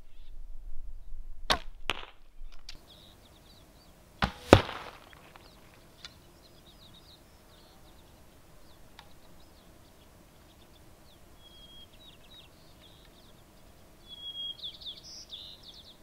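Traditional longbow shots: a sharp crack of the bowstring released and the arrow striking, about a second and a half in. Then a louder pair of cracks with a short ring at about four and a half seconds.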